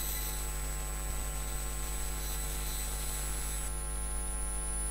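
Steady electrical mains hum with a hiss over it, a constant buzz in the recording.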